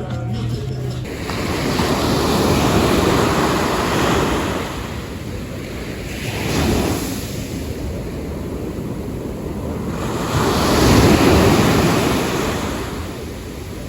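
Sea waves washing onto the shore, swelling and falling back about three times, with wind buffeting the microphone.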